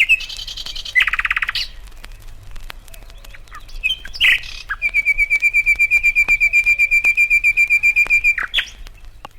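Bird calls: a few short chirps and a buzzy rattling call in the first second and a half, more chirps a few seconds in, then a long, even trill of about ten notes a second lasting some three and a half seconds.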